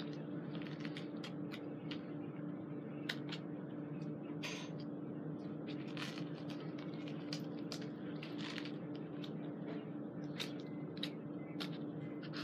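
Airsoft gear being handled and put on: rustling with many scattered small clicks and knocks, over a steady background hum.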